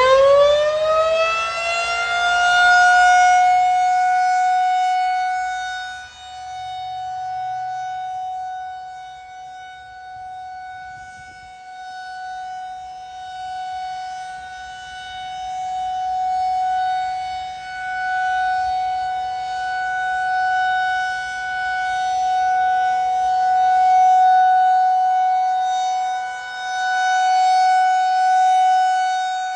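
Federal Signal 2001-SRNB rotating electromechanical siren sounding the Alert signal. It finishes winding up to full pitch in the first few seconds, then holds one steady tone that swells and fades over and over as the rotating head sweeps around.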